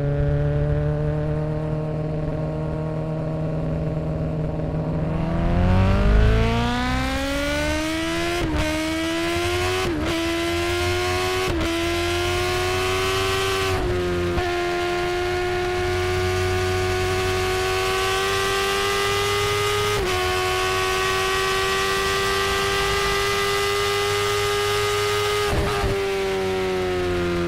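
Kawasaki Ninja ZX-10R's inline-four engine running at a steady low note, then revving up with four quick upshifts about a second and a half apart. It holds a steady higher note, then the revs fall off near the end.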